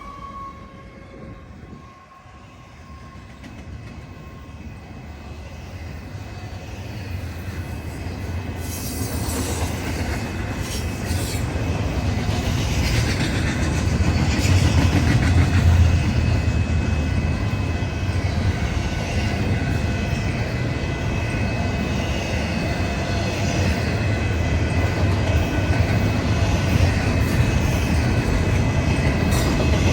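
Train approaching and passing: a low rumble grows louder over the first fifteen seconds or so, then runs steadily with wheels clattering on the rails and a faint steady squeal.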